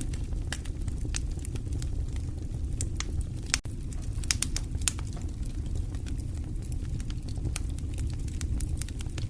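Fire burning in a fireplace: a steady low rumble of flames with scattered crackles and a few sharper pops.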